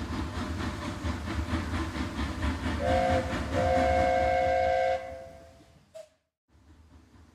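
Train running with a low, rhythmic rumble, as the locomotive sounds a short chord on its horn and then a longer one about half a second later; the train sound then fades and cuts off.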